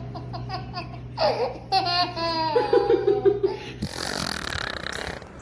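A baby laughing in short, pulsing giggles. About four seconds in, the sound changes abruptly to a rougher, breathy noise.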